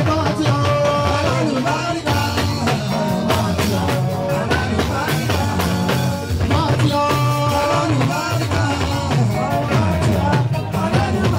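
Band music with a steady drum beat and a singing voice.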